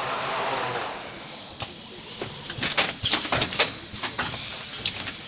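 Automatic canvas stretching machine at work: a rushing slide at the start, then a run of sharp mechanical clacks and knocks about three seconds in, with several short high squeaks that fall in pitch.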